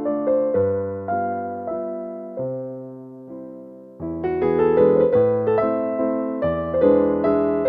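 Background piano music: slow, sparse notes that fade away, then fuller, louder playing about four seconds in.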